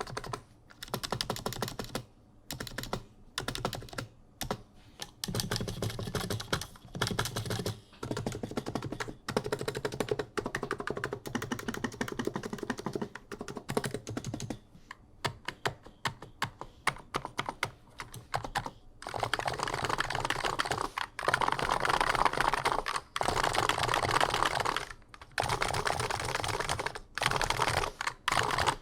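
Typing on an Abko Hacker K965P V2 keyboard with 55 g Niz electrocapacitive (Topre-style) switches, with a deep, thocky keystroke sound. Keys are struck in bursts with short pauses between them, and the typing grows faster, louder and nearly continuous over the last third.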